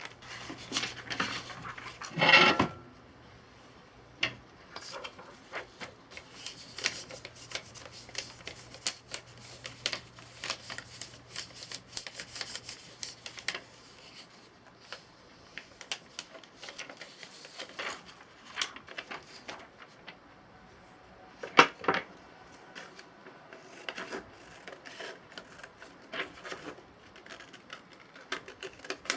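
Hand work on an off-road boot: irregular small clicks, taps and rubbing of tools and leather, with two louder knocks, one about two seconds in and one about twenty-two seconds in. A faint low hum runs under the first half.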